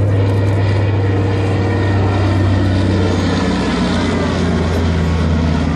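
Twin radial piston engines of a PBY-5A Catalina flying boat in a low pass, a steady propeller drone that drops slightly in pitch about halfway through as the aircraft goes past.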